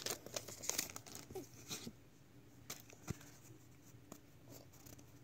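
Faint clicks and rustles of Pokémon trading cards being handled and slid through the fingers, denser in the first two seconds, with one sharper tick about three seconds in.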